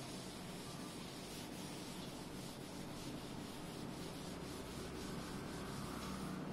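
Cloth wiping a chalkboard in repeated back-and-forth strokes, erasing chalk writing.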